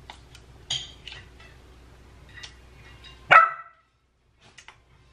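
A dog gives one short, sharp bark about three seconds in, over faint clinks of a spoon and dishes.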